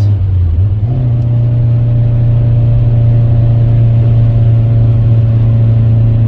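Inside the cabin of a Toyota Tercel wagon at road speed, before sound deadener is fitted: a loud, steady low engine and road drone. Its pitch steps up slightly about a second in.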